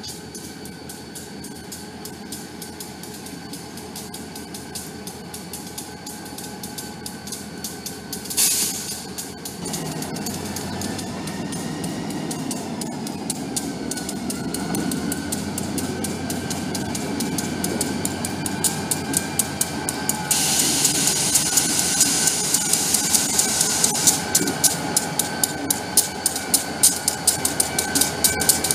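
Diesel freight locomotives approaching and passing slowly, their engines rumbling louder as they draw near. There is a brief hiss about eight seconds in and a steady hiss from about twenty seconds. Wheels click over the rail joints, faster toward the end.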